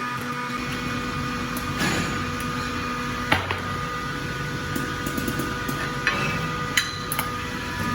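Hydraulic heat press and workshop machinery running with a steady hum and a low rumble, with a few sharp metal knocks as the metal label molds are handled and set in the press.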